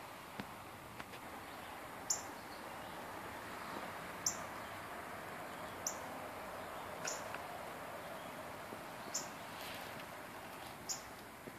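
Short, high-pitched chirps from a small animal, six in a row spaced about one and a half to two seconds apart, over a steady outdoor background hiss.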